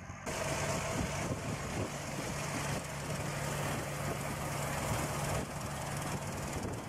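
Farm tractor engine running steadily while it works a hydraulic-arm ditch mower along a ditch bank.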